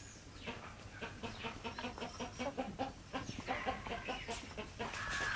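A flock of backyard chickens clucking, many short calls overlapping in quick succession, with one longer, louder call near the end.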